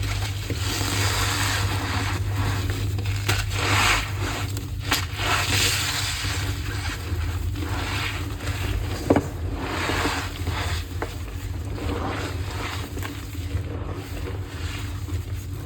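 Block of gym chalk being crushed and rubbed by hand: a continuous crumbling scrape that comes in uneven surges, with one sharp crack about nine seconds in.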